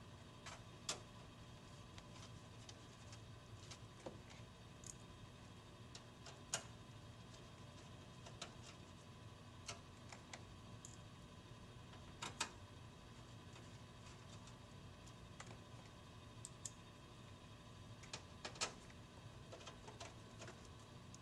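Faint, scattered small clicks and ticks of a screwdriver and metal screws as the power supply's mounting screws are driven into a steel PC case, over quiet room tone.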